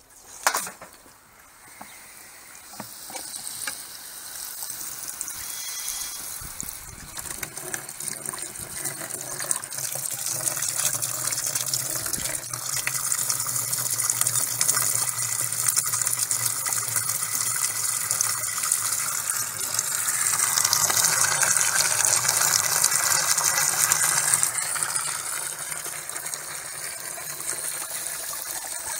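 Water gushing from a plastic downpipe and splashing into a plastic dustbin, building from about two seconds in and loudest about twenty seconds in. A single knock comes just after the start.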